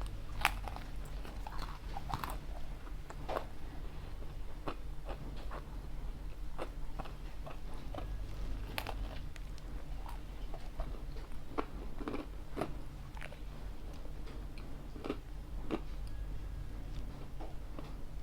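A person chewing and biting pizza close to the microphone, with irregular crisp clicks and mouth sounds over a steady low hum.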